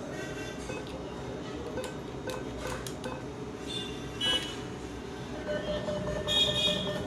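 ATM keypad beeping: a few short, high beeps as keys are pressed for a second cash withdrawal, over a steady low machine hum.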